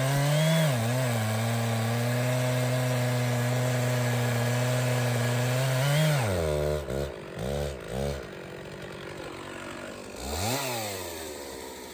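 Stihl 066 two-stroke chainsaw running at full throttle, steady under load as it cuts through a big red oak log. About six seconds in it drops to idle, blips the throttle twice, and revs once more briefly near the end before settling back to idle.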